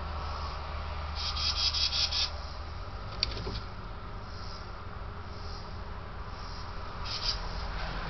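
Insects chirping outdoors in summer: a rapid pulsed buzz about a second long, and a shorter one near the end, over a steady low hum. A single sharp click comes about three seconds in.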